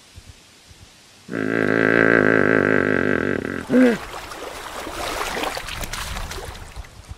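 Hippopotamus call: a loud, deep, drawn-out bellow with a wavering pitch, ending in a short gliding honk. It is followed by a few seconds of quieter, rough, crackly grunting noise.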